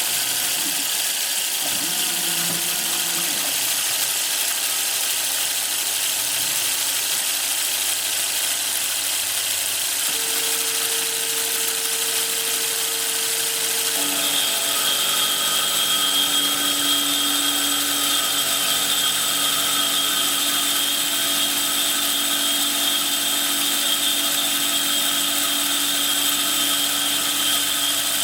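Small Sieg-type mill converted to CNC running a milling job, its spindle giving a steady hiss. Steady whining tones shift in pitch about ten seconds in and again a few seconds later, as the machine's axis moves change.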